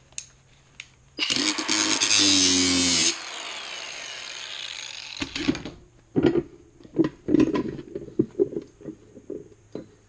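Cordless angle grinder cutting into the hardened steel body of a Kryptonite Evolution Series 4 padlock for about two seconds, then let go and winding down. After that, a string of metal knocks and clinks as the cut lock body is handled.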